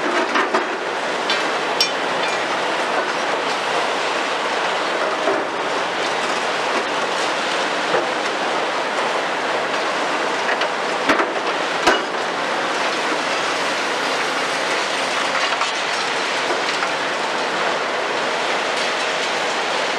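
High-reach CAT 352 F demolition excavator breaking down a concrete building: a steady clattering rush of concrete rubble crumbling and falling, over machine noise, with two sharp knocks a little past the middle.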